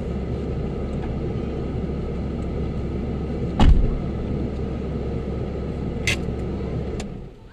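Car engine idling, heard from inside the cabin as a steady low rumble, with a car door shutting once about three and a half seconds in and two sharp clicks later. The rumble stops just before the end.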